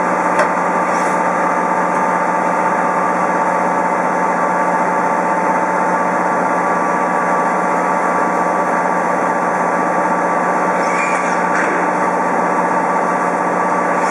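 CNC machine running steadily while machining brass screws, with a constant drone and steady whine. There is a brief click about half a second in, and faint rising-and-falling pitch sweeps near the end.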